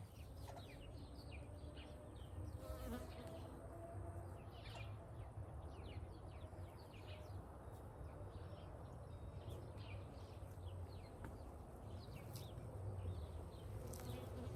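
Faint outdoor garden ambience: a low steady buzz, like a flying insect, under many small scattered bird chirps.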